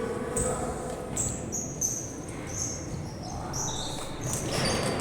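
Players' shoes squeaking on an indoor court floor: many short, high squeaks at varying pitches, one after another, over a murmur of background noise.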